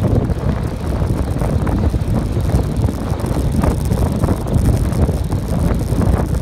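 Strong wind buffeting the microphone as a dense, uneven low rumble during a fast downhill run on an asphalt road.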